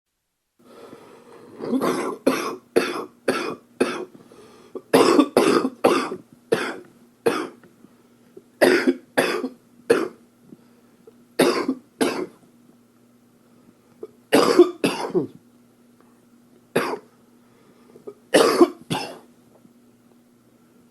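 A man coughing in repeated fits of one to five sharp coughs, with short pauses between fits: a chesty cough from an upper respiratory infection.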